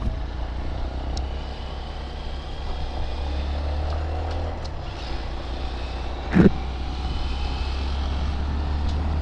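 Honda Monkey motorcycle's small single-cylinder engine running while riding, under a steady low wind rumble on the microphone. A brief voice sound comes about six seconds in.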